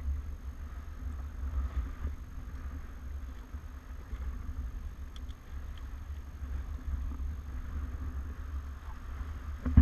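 Wind buffeting the camera's microphone as a low, fluttering rumble, with a faint hiss of water moving past the catamaran's hulls.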